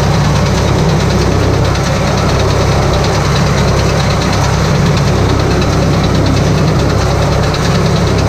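Tractor engine running steadily while it drives a round baler that is picking up and rolling cut grass into a bale, a dense, unbroken mechanical drone.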